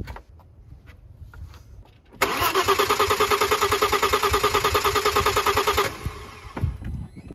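Starter cranking an Audi 2.7 twin-turbo V6 without it firing, with a rapid, even beat of compression strokes. It starts about two seconds in and stops after a little under four seconds. This is a compression test with the fuel pump disabled, and the cylinder builds 166 psi, a healthy reading.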